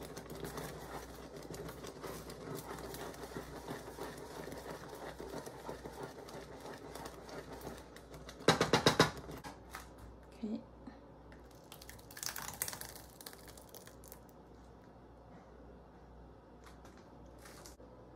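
A wooden spatula stirring and scraping through thick oat porridge in a pot, then a few louder bursts of plastic crinkling and clatter as a plastic food container is handled.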